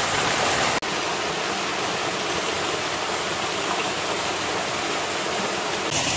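Small waterfall pouring into a shallow rocky pool: a steady rush of falling and running water. It drops out for an instant just under a second in.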